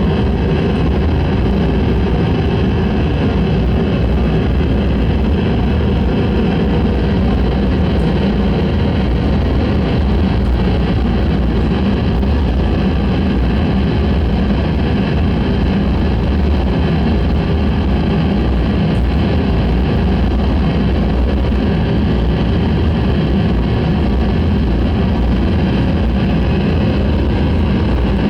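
Harsh noise music: a loud, unchanging wall of dense electronic noise, heaviest in a deep rumble, with a few faint held tones above it.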